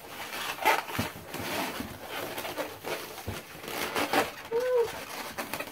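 Long inflated latex twisting balloons rubbing and squeaking against each other and the hands as they are twisted and handled, in irregular short squeaks and rubs, with a brief pitched squeak about four and a half seconds in.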